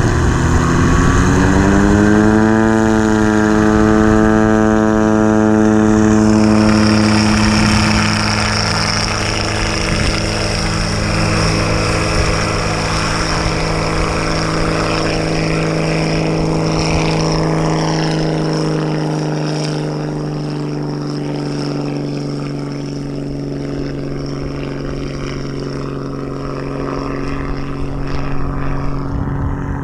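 Helio Courier single-engine propeller plane going to full power for takeoff. The engine and propeller note rises over the first few seconds, then holds steady through the takeoff run, lift-off and climb-out, easing off slightly as the plane moves away.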